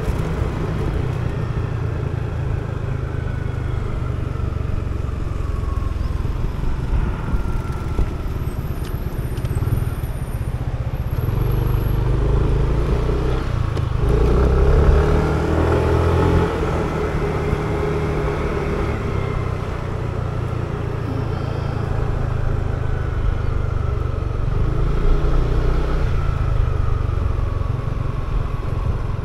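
Yamaha motor scooter's engine running while it rides along a road, its pitch rising and falling with speed, under heavy wind rumble on the microphone. It grows louder for a moment about halfway through.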